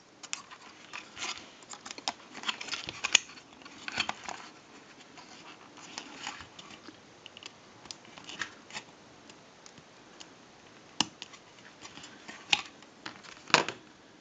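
Irregular light clicks and short scrapes of a slender metal hand tool and fingers working on a telephone handset's circuit board and plastic housing as an IC socket is set in place for soldering. A few sharper clicks come near the end.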